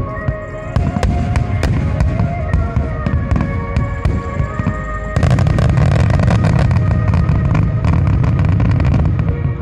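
Aerial firework shells bursting over music with sustained tones. About five seconds in, a dense, rapid barrage of explosions begins with a heavy low rumble, the loudest part.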